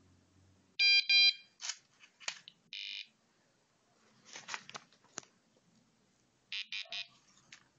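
A robot's buzzer, driven by an Arduino, sounds two loud pitched beeps about a second in and a shorter high tone near three seconds. Scattered clicks and short rattles follow, with three quick bursts near the end.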